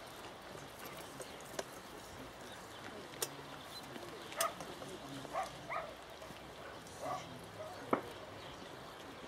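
Quiet outdoor hush: a steady faint hiss, broken by four short sharp clicks spread through it and a few brief, faint voice-like murmurs around the middle.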